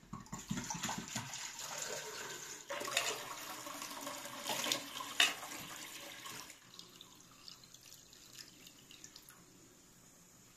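Water pouring from an earthenware clay jug into a metal samovar, splashing steadily into the metal chamber. The pour stops about six and a half seconds in.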